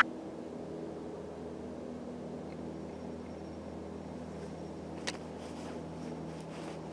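Distant diesel freight locomotive running, a low steady drone carried across open country as the train moves slowly. A short sharp click about five seconds in.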